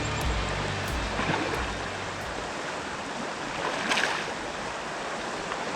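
Steady rushing of a small river's flowing water, with a brief louder surge of water noise about four seconds in.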